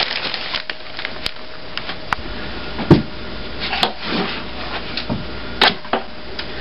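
Scattered knocks and clatter of objects being handled, with rubbing and scraping between them; one knock about three seconds in is the loudest.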